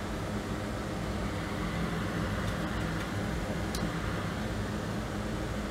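Steady low mechanical hum, like a running fan or motor, with one faint tick a little under four seconds in.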